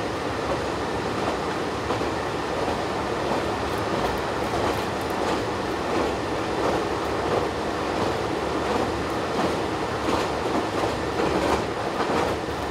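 Interior of a single-car diesel railcar running at speed: a steady rumble of the engine and the wheels on the rails, with the clack of the wheels over rail joints, coming more often near the end.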